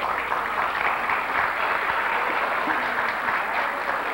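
Audience applauding, a dense, even clapping that swells just before the painting is handed over and starts to fade near the end.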